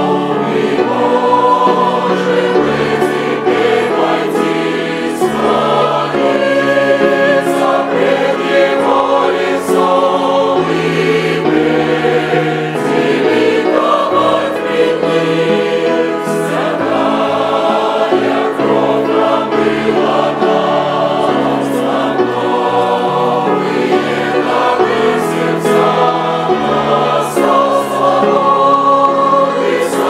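Large mixed choir of men's and women's voices singing a hymn in Russian, in full sustained chords that move steadily without a pause.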